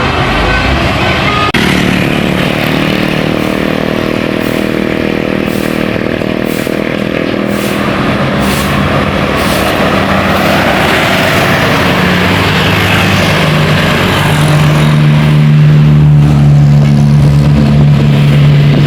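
Bus with a multi-tone telolet air horn sounding long held chords that change about a second and a half in and again near the end, over the noise of the bus going by.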